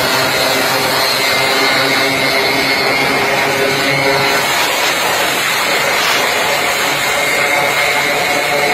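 Small motorcycle engines running steadily at speed, with heavy wind noise rushing over the microphone of a moving bike.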